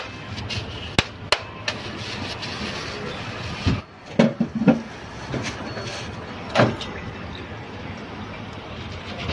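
A knife knocking sharply against a cutting board several times in the first two seconds, then the knife working into a plastic packet of frozen milk, with one louder knock a little past halfway.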